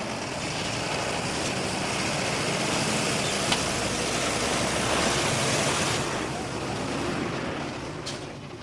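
Heavy construction vehicle running, a broad rushing noise over a low engine hum that swells over several seconds and fades away near the end.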